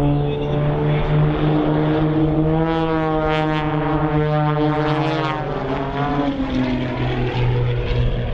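Engines and propellers of a formation of four single-engine propeller aerobatic planes droning as they fly overhead. The pitch shifts as they pass, sliding down after about five seconds.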